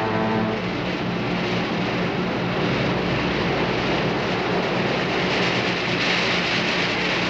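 Rocket nose cone plunging into the sea: a loud, steady rushing rumble that turns hissier in the last two seconds as it drives into the water in a burst of spray.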